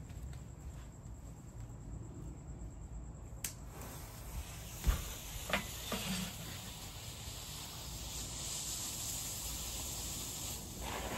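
Fuse of a World Class Mega Mini fountain firework burning with a steady hissing sizzle, with a few sharp clicks along the way. Near the end the fountain catches and a louder rush of spraying sparks begins.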